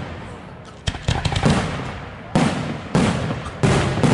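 Aerial firework shells bursting overhead: about five sharp bangs, spaced half a second to a second apart, each trailing off into a rumble.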